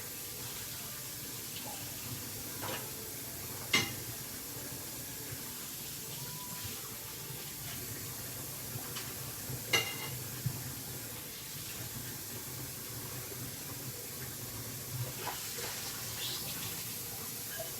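Kitchen tap running as a spoon is washed at the sink, with a few sharp clinks of utensils, the loudest about four and ten seconds in.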